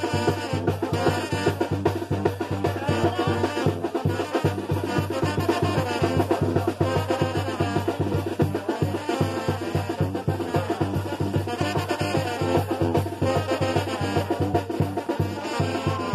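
A brass band with drums playing a lively dance tune over a steady beat.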